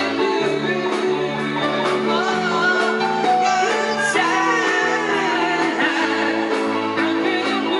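Live rock band playing: male voices singing into microphones over electric guitar, a bass line and a steady drum beat.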